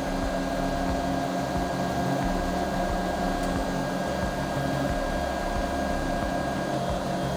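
Robo 3D R1 3D printer printing: a steady whir from its fans and a steady whine from its stepper motors over a low hum.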